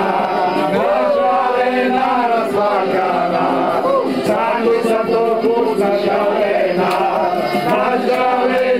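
A group of men singing together, several voices overlapping in a continuous chant-like song with no pauses.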